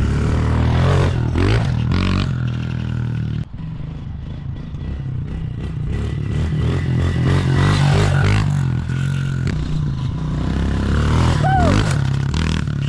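Small gasoline dirt bike engine running under way as it is ridden, its pitch rising and falling with the throttle and gear changes.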